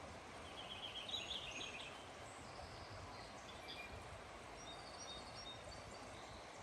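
Small birds chirping over a steady rush of flowing water. A quick run of short repeated chirps about half a second to two seconds in is the loudest part, followed by scattered higher chirps.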